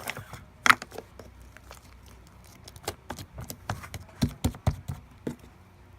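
Slime being squished and poked by hand, making irregular sticky clicks and pops, with a busier run of them in the second half.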